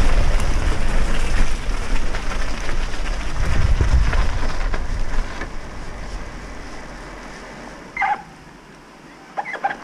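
Wind buffeting the bike-mounted camera's microphone over the rumble of bicycle tyres on a gravel path, fading away over the first half as the bicycle slows to a stop. Short high chirping calls follow, once about eight seconds in and in a quick cluster near the end.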